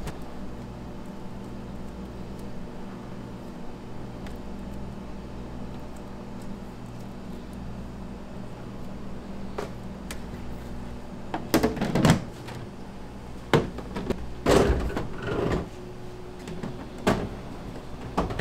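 A steady low hum, then from about halfway in a run of knocks and scrapes as white plastic dough boxes are handled and one is slid onto a shelf of an under-counter refrigerator.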